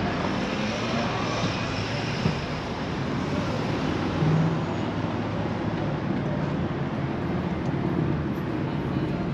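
Steady motor-vehicle noise running without a break.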